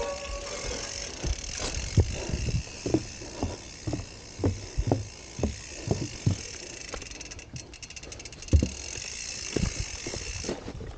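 Footsteps, about two a second, of a rider walking a gravel bike along a dirt trail, with the rear hub's freewheel ticking as the wheel rolls; a quick run of ticks stands out about seven seconds in.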